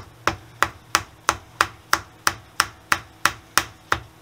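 Hammer tapping steadily on a large socket, about three even strikes a second, driving a new final-drive oil seal into a motorcycle engine case with the old seal as a buffer.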